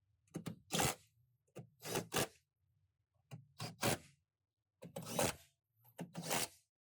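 Repeated short scraping or rubbing strokes, mostly in pairs or threes, coming about every second to second and a half with short pauses between.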